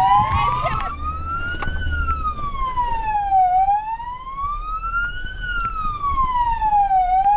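Vehicle siren wailing, its pitch sliding slowly up and down in a rise and fall about every three and a half seconds, over a low rumble.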